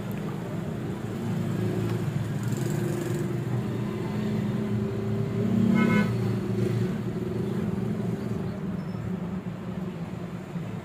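Road vehicle engines running steadily, with a brief horn toot about six seconds in.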